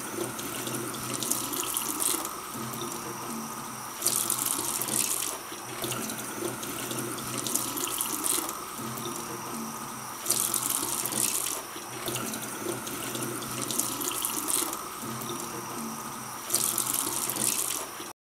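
Tap water running into a stainless steel sink and splashing over pak choi leaves as gloved hands rub them clean, with louder splashy spells every few seconds. It stops abruptly near the end.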